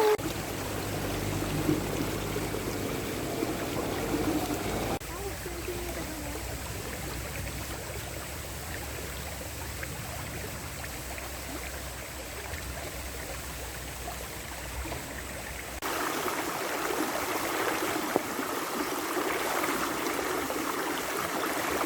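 Steady rain falling and pattering in a forest, with a faint low hum underneath for most of it. The sound shifts abruptly at about five seconds and again near sixteen seconds.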